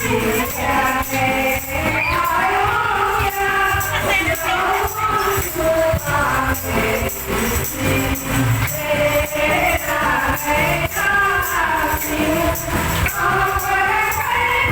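Background music: a song with singing voices over a steady beat with tambourine-like jingles.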